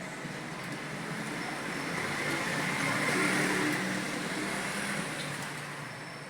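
A road vehicle passing by: a broad rushing noise that swells to its loudest about three seconds in, then fades away. Faint keyboard clicks sound under it.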